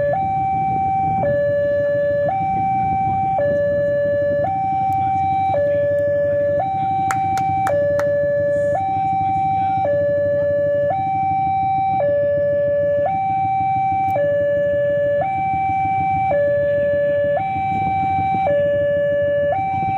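Railway level-crossing warning alarm sounding a two-tone high-low signal, switching pitch about once a second, warning that a train is approaching. A steady low rumble runs underneath.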